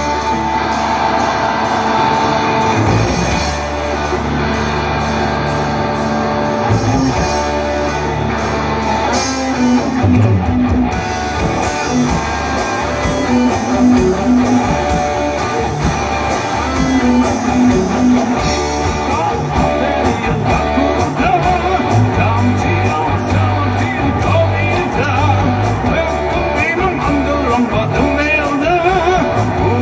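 Live rock band playing: a Stratocaster-style electric guitar over a drum kit and bass, with a man singing.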